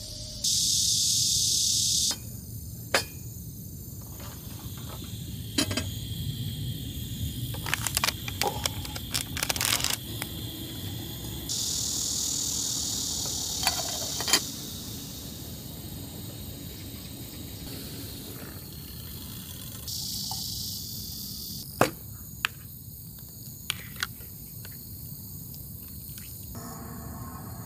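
Camp-cooking handling sounds: sharp clicks and clacks from a stainless steel kettle and a gas canister stove, with three stretches of steady high hiss a few seconds each, the first the loudest. Near the end, water is poured from the kettle into a metal bowl.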